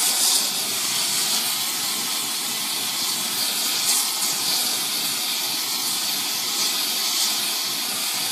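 Oxyacetylene torch flame hissing steadily as it heats the edge of a Damascus knife blade to an even red for differential edge hardening.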